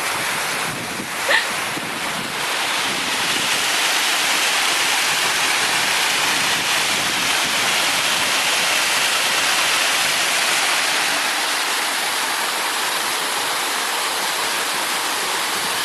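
Waterfall: a steady, even rush of falling water, with a brief high-pitched sound about a second in.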